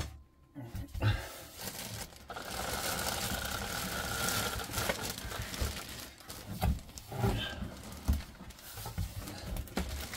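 Clear plastic wrapping crinkling and the cardboard box rustling as a boxed RC truck is unpacked, with a long rustle for a few seconds and several dull knocks later on.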